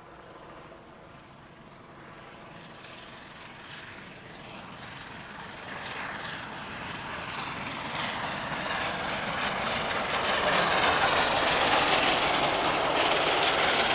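Steam locomotive working a passenger train, its rapid exhaust chuffs growing from faint to loud as it approaches at speed. Near the end the coaches are rolling past close by.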